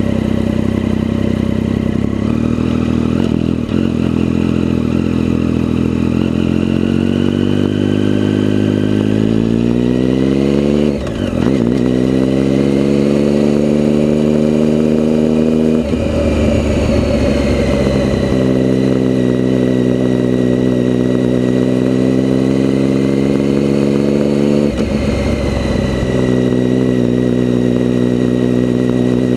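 Motorcycle engine running under way. Its pitch climbs steadily for several seconds, drops briefly about eleven seconds in as for a gear change, then holds fairly steady, with short breaks in the sound twice more later on.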